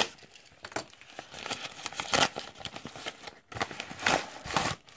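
Packaging crinkling and rustling as a parcel is opened by hand, in irregular bursts that are loudest about two seconds in and again near the end.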